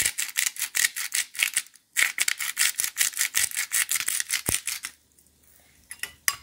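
Hand-twisted salt grinder grinding pink Himalayan salt: a rapid run of gritty ratcheting clicks, about seven a second, with a brief pause near two seconds, stopping about five seconds in.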